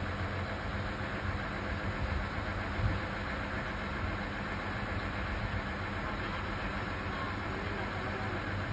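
Cog railway locomotive's engine idling with a steady low hum.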